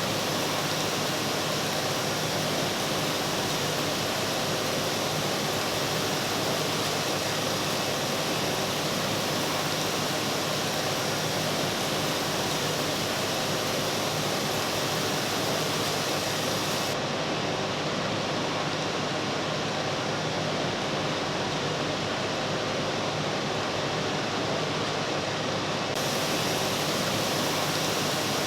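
Steady, even hiss-like machine noise from a button factory's precision-machining floor, with faint steady hum tones in it. The highest treble drops away for several seconds past the middle.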